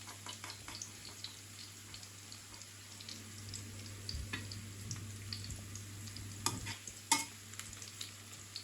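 Onions frying in oil in a pan: a faint, steady sizzle with small crackles, stirred now and then, with a few sharp clicks of a utensil against the pan, the loudest a little after the middle and near the end.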